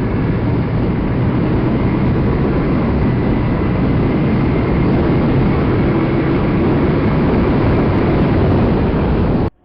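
Motorcycle riding at high speed: a steady engine drone under heavy wind noise on the microphone. It cuts off abruptly just before the end.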